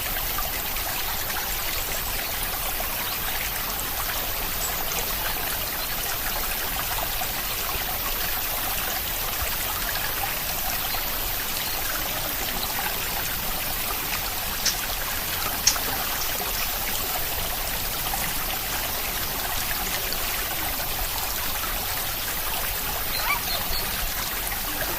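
Steady rain falling, an even hiss of water with a few sharper single drops or ticks standing out about two-thirds of the way through and near the end.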